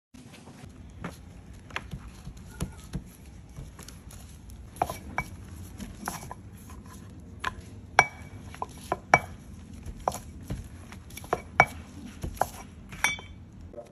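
Stainless-steel rolling pin rolling dough flat on a wooden board, clicking and knocking against the board at irregular intervals, a few knocks with a short metallic ring. A steady low hum runs underneath.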